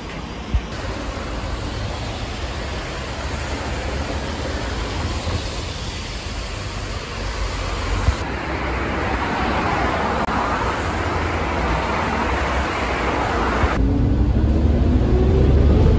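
Steady street traffic noise, then, near the end, the low rumble of a city bus heard from inside the bus, with a whine that rises in pitch.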